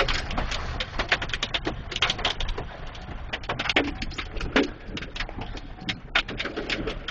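Hailstones pelting the car's body and windshield in a dense, irregular patter of sharp clicks, over a steady rumble of wind-driven rain.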